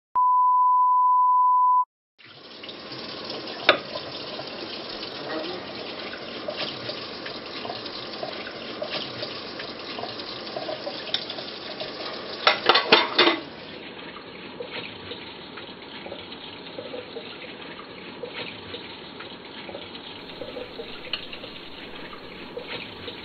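A steady 1 kHz reference tone with the colour bars, about two seconds long, cutting off suddenly. Then a kitchen tap runs into a sink while pots and dishes clink, with a burst of loud clattering about halfway through; the running water goes on, quieter, to the end.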